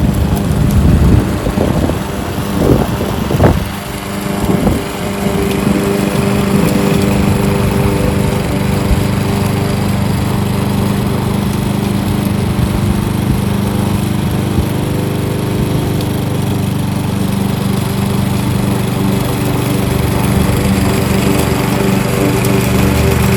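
Kohler XT-675 single-cylinder overhead-valve engine on a Yardworks front-wheel-drive push mower, running at steady speed. The level swells and dips unevenly over the first few seconds, then holds steady.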